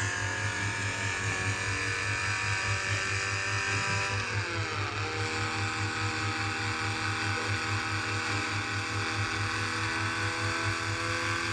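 A steady motor or engine running with a pulsing low drone; its pitch drops once, about four seconds in, then holds steady.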